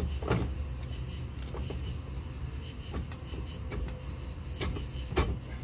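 Scattered knocks and clunks from a Kodiak jet pump's stator section, stuck on its O-ring, being worked by hand on the pump housing. There are about five of them, the sharpest near the end, over a low steady hum.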